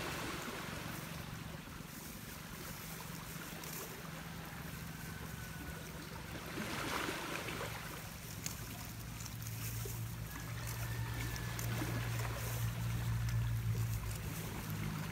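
A steady low mechanical hum under a steady hiss, the hum growing louder in the second half.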